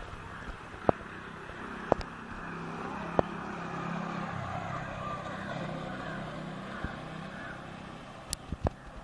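A motor vehicle passing out of sight, its sound rising to a peak and fading over about five seconds. Three sharp clicks come in the first few seconds.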